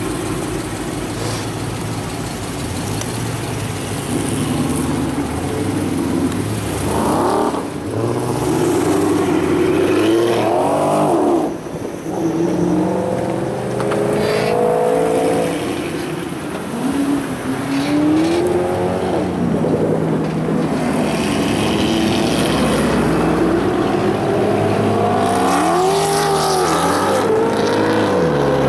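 Several muscle cars idling in a queue, then pulling away one after another. Their engines rev up and fall back again and again.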